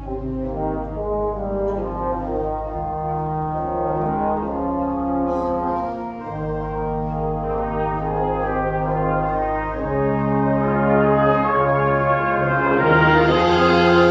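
Live brass ensemble (trumpets, trombone and tuba) playing held chords over a low bass line that moves every few seconds, growing louder toward the end with a bright swell in the last couple of seconds.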